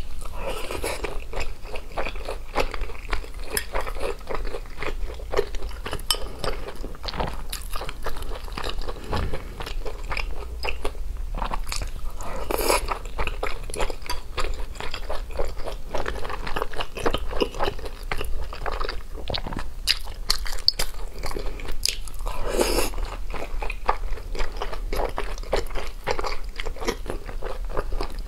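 Close-miked eating sounds of someone biting and chewing large steamed dumplings, a dense run of small wet mouth clicks. Two louder, fuller bursts stand out, a little before halfway and again about 23 seconds in.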